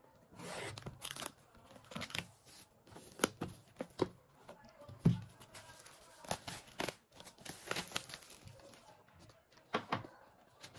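Packaging being handled: paper or plastic torn and crinkled by hand, an irregular run of sharp crackles and clicks with short tearing sounds in between.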